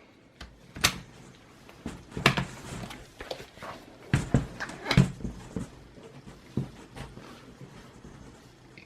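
Irregular clicks and knocks of a Dell Latitude E7450 laptop's battery being fitted back into its bay, with a few louder knocks around the middle.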